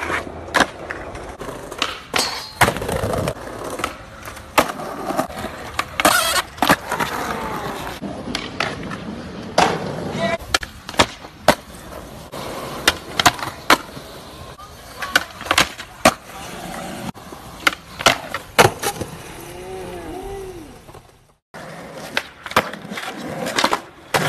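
Skateboard on concrete: wheels rolling, the tail popping and the board landing with many sharp cracks, and trucks scraping along ledges during grinds, with a brief dropout where one clip cuts to the next.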